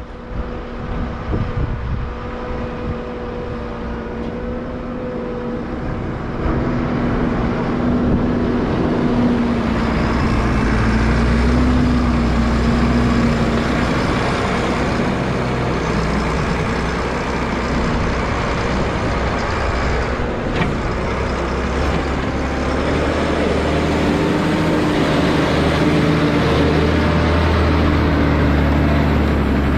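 Massey Ferguson 8480 tractor's six-cylinder diesel engine running steadily close by, growing louder and heavier about six seconds in as the tractor comes up alongside.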